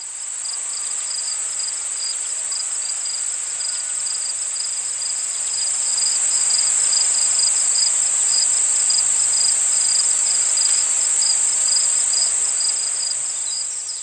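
Night insect chorus: a dense, steady, high shrill hum with a fast pulsing trill beneath it, growing a little louder about halfway through.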